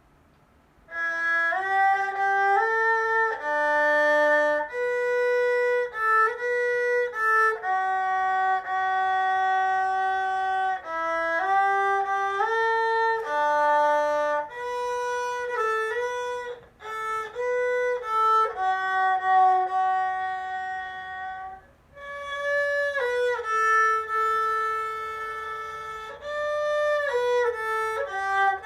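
Solo erhu, a beginner bowing a slow melody with small slides between notes; it starts about a second in and pauses briefly twice.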